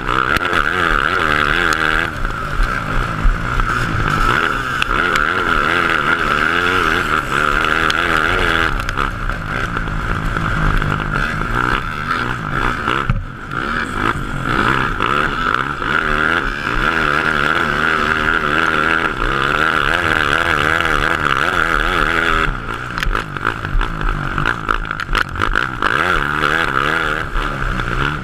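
Honda CRF450 single-cylinder four-stroke engine of a grass kart at race pace, heard onboard, its revs rising and falling continually through the corners, with a short lift-off about 13 seconds in.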